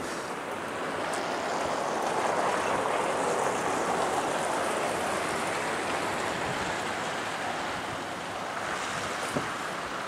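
Steady rushing outdoor wind noise, swelling a couple of seconds in and easing off toward the end, with a single faint click near the end.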